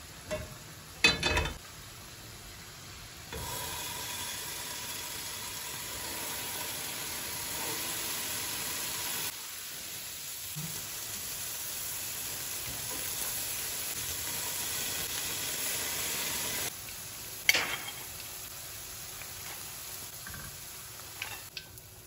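A pan clanks down on a gas stove's grate about a second in. Then halloumi slices and potatoes sizzle steadily as they fry in oil, until a sharp knock of a utensil on a pan late on.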